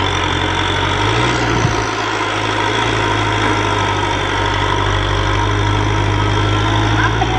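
Kubota M6040SU tractor's four-cylinder diesel engine running steadily under load as its front blade pushes a heap of mud. The engine note steps up slightly about a second in and then holds.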